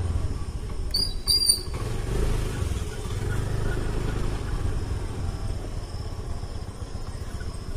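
Scooter engine running with a steady low rumble of wind on the microphone while riding. Two short high-pitched chirps sound about a second in.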